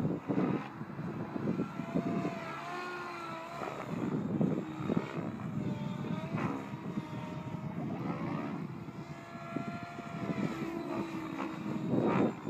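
Align T-Rex 700E electric radio-controlled helicopter in flight: its rotor and motor whine rises and falls in pitch as it manoeuvres, over an uneven rushing of the blades.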